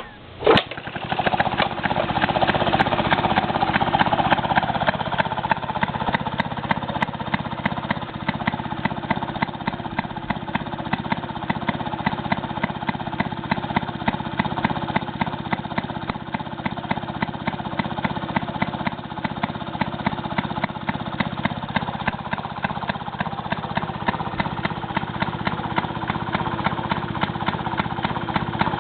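1932 Maytag Model 92 single-cylinder two-stroke engine starting with a sharp pop about half a second in, then running steadily with a fast, even firing beat.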